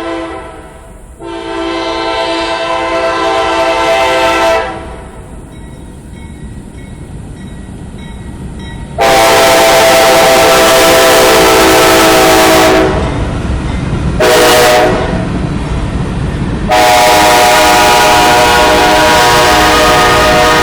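CSX freight locomotive's multi-chime air horn sounding a series of loud blasts: two long ones, then after a pause a long, a short and a long. This is the pattern of the grade-crossing signal. Low rumble of the train rising under the later blasts.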